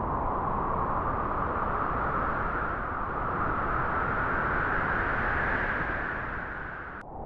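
Wind gusting through grass: a steady rushing that swells to its loudest about five seconds in, then eases and breaks off abruptly near the end.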